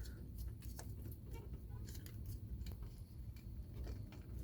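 Faint, scattered small clicks and taps of a plastic ignition switch being handled and pushed toward its place in a car's steering column, over a low steady hum.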